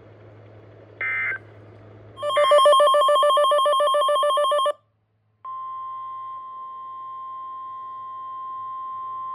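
NOAA Weather Radio alert tones sounding between two severe thunderstorm warnings. A short electronic burst comes about a second in, then a loud warbling alarm tone for about two and a half seconds. After a brief break comes a steady single tone, the Warning Alarm Tone, which announces the next warning.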